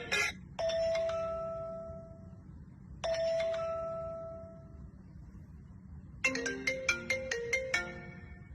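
Two single chime tones about two and a half seconds apart, each ringing out slowly. About six seconds in, a phone ringtone starts: a fast, repeating marimba-like melody.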